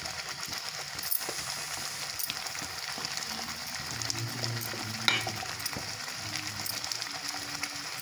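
Spinach gravy for palak paneer bubbling and sizzling steadily in a kadhai on a gas flame. A few light clicks come through as paneer cubes are slid off a steel plate into it.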